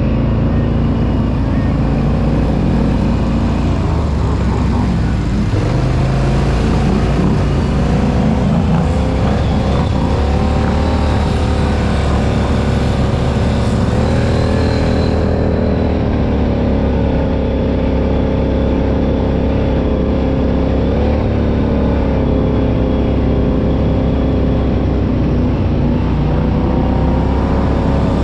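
Off-road vehicle engine running loud, its pitch rising and falling as the throttle changes.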